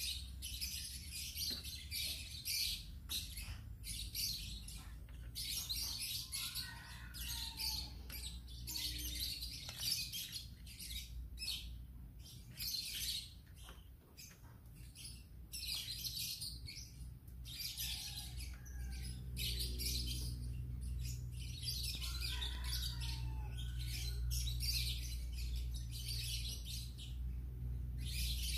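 Birds chirping, with high twittering that comes and goes every second or so and a few lower gliding calls, over a low steady hum.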